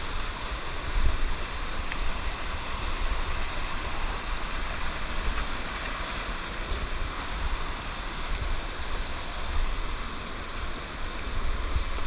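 Rushing water of a jungle stream cascading over rocks, a steady hiss, with a low rumble underneath and a louder bump about a second in.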